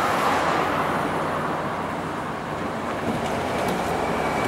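Street traffic noise: a steady mix of road noise and a low engine hum from vehicles on the road.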